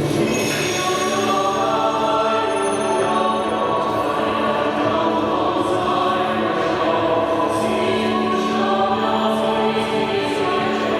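Show soundtrack music with a choir singing long held notes at a steady level.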